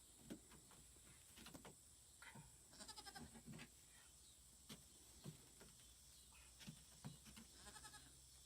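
Faint goat bleats, a few short ones near the middle and one near the end, among soft scattered knocks.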